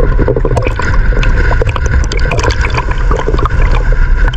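Choppy sea water slapping, splashing and gurgling around a camera held at the waterline, with a dense patter of small splashes and a deep low rumble.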